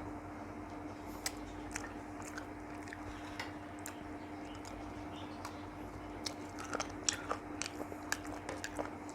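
A person chewing a mouthful of a thali meal close to the microphone, with wet mouth clicks and smacks scattered throughout and coming thicker in the last few seconds. A steady low hum runs underneath.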